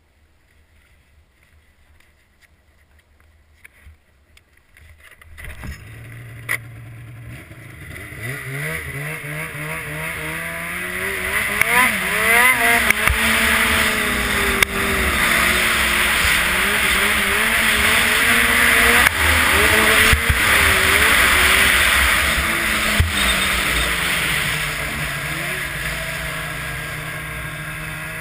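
Snowmobile engine coming in about five seconds in, throttling up and running at speed with a loud rushing hiss, then easing off near the end.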